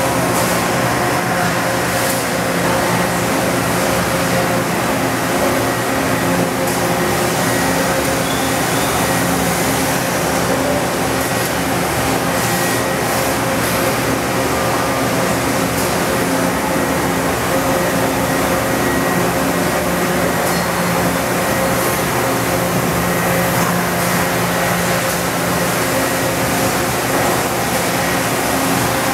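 Industrial machinery in a machine shop running steadily: an even whirring noise with a low, constant hum and a few steady tones underneath, unchanging throughout.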